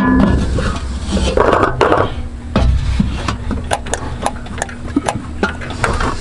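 Scattered light clicks and rubbing from hands working on a truck carburetor, with a steady low rumble underneath.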